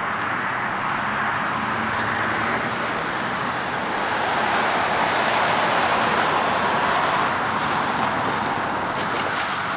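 Road traffic: cars driving past on a roadway, a steady rush of tyre and engine noise that swells as a car passes close about halfway through, then eases off.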